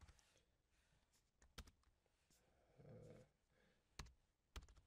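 Near silence with a few scattered computer keyboard keystrokes, single clicks a second or more apart, and a faint brief low sound about three seconds in.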